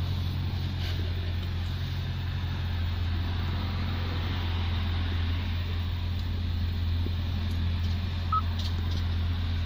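Hyundai i30's 2.0-litre G4NC four-cylinder engine idling in Park, heard from inside the cabin as a steady low hum. Near the end comes a single short beep as the infotainment touchscreen is pressed.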